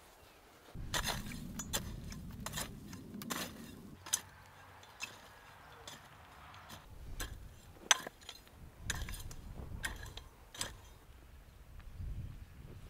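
Garden hoe working dry, lumpy soil: the blade chops and scrapes along the row in irregular sharp knocks and clinks, in two busy spells.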